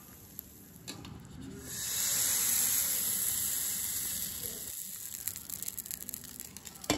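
Thick dosa batter sizzling on a hot greased tava: a loud hiss starts about two seconds in and slowly fades, with light crackling. A sharp click comes near the end.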